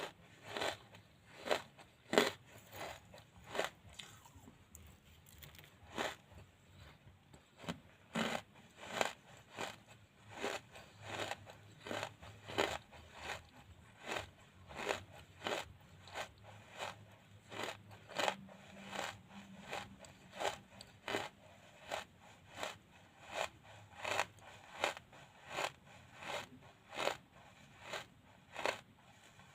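Wood charcoal being chewed close to the microphone: a steady run of crisp crunches, about three every two seconds.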